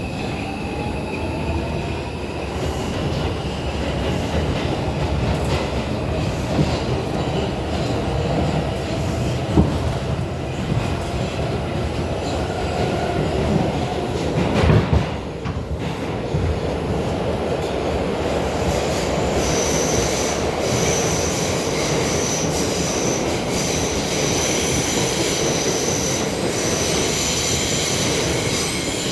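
New York City Subway R142 car running between underground stations: steady wheel-on-rail rumble, with a motor whine rising in pitch at the start and a few knocks around the middle. A steady high-pitched wheel squeal joins about two-thirds of the way through.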